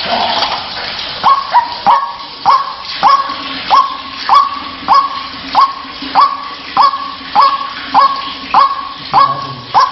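White-breasted waterhen calling: a long, even series of harsh "kru-ak" notes, each rising sharply to a held pitch, about one and a half a second.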